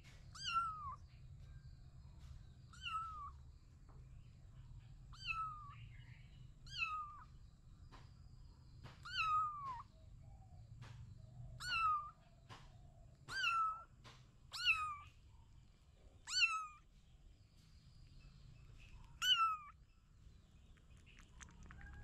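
Young kittens mewing repeatedly: about ten short, high-pitched mews, each dropping in pitch, one every second or two.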